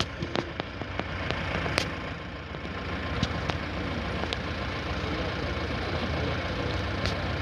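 An engine running steadily at idle, a low even hum, with a few sharp clicks and knocks scattered through.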